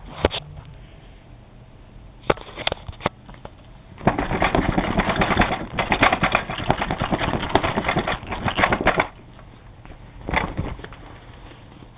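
A few clicks and knocks as the Hoover Concept One's cloth shake-out bag is worked off, then about five seconds of rapid flapping and rustling as the bag is shaken hard, starting about four seconds in, with another knock or two near the end.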